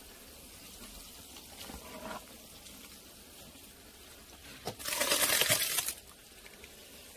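Wet boiled-down honeycomb and its water tipped from a plastic basin into a mesh straining cloth: a couple of small splashes, then one loud wet splash lasting just over a second, about five seconds in.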